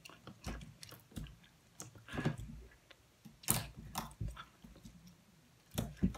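Chewing gum close to the microphone: irregular wet mouth clicks and smacks, one louder smack about three and a half seconds in.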